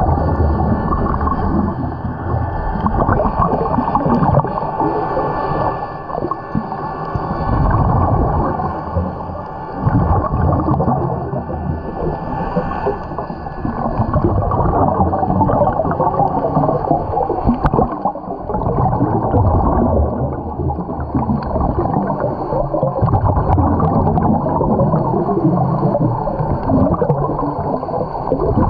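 Muffled underwater noise picked up by a camera in its waterproof housing: a continuous churning rumble with the gurgle of scuba bubbles, swelling and dipping every few seconds.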